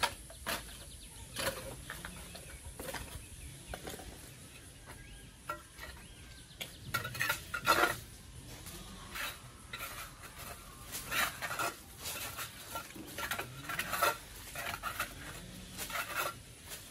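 Soft grass broom sweeping a concrete floor: irregular brushing strokes, some in quick runs of several.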